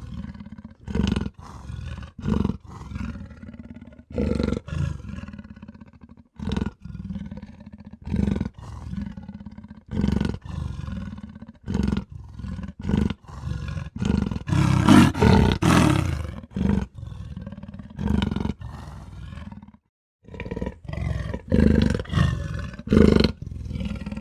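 Black leopard calling in a long series of short roars about a second apart, with a longer, louder stretch past the middle and a brief break near the end.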